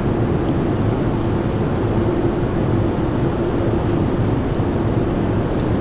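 Steady cabin noise of a Boeing 787-10 airliner in cruise: a constant rush of air with a steady hum.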